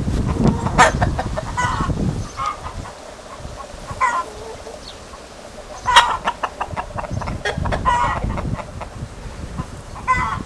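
A flock of chickens, hens with a rooster among them, clucking in short calls every second or two, over a low rumble during the first couple of seconds.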